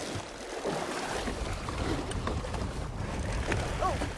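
Water splashing and churning as a hooked shark thrashes against the side of the boat, with a steady low rumble setting in about a second in.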